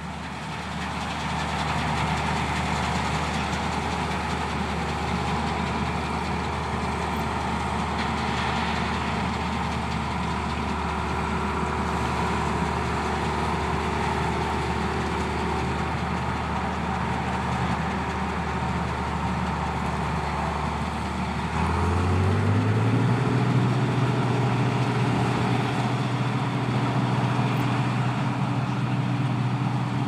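Claas Dominator 108 combine harvester's diesel engine running steadily under a haze of working machinery noise. About two-thirds of the way through, the engine note steps up in pitch and gets a little louder as the revs rise.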